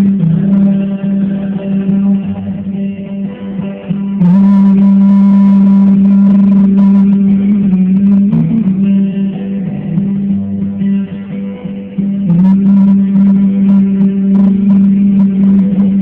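Band playing an instrumental guitar passage with held notes, turning louder about four seconds in.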